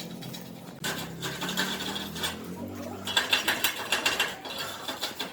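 Rapid, rough scraping and clicking of a hand tool at work, starting about a second in and densest in the second half, over a low hum that fades out in the first second.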